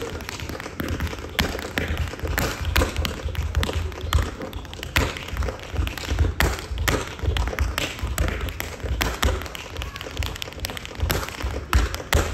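Tap shoes striking a stage floor in fast, rhythmic clicks, with low thuds underneath.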